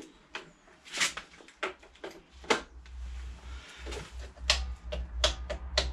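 Clicks and knocks from plugging in a dead air compressor and working its switch, several separate sharp clicks, with a low hum in the second half. The compressor's motor does not start: it has died.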